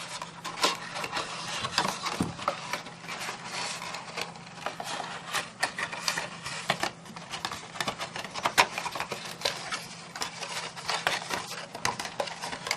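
Cardstock gift box being handled and folded closed: irregular rustling and scraping of card with many light taps and clicks.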